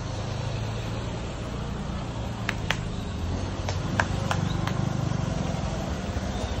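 Small car's engine running close by, a steady low rumble, with a handful of sharp clicks around the middle.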